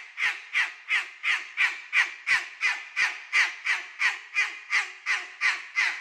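Umbrella cockatoo screaming in a fast, even run of short calls, about three a second.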